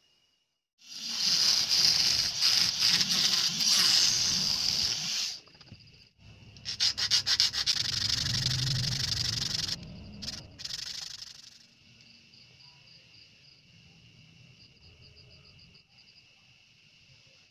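Sandpaper rubbed back and forth over small plastic pieces cut from a gas lighter, in two long stretches and a short third one. After that only faint high insect chirping is left.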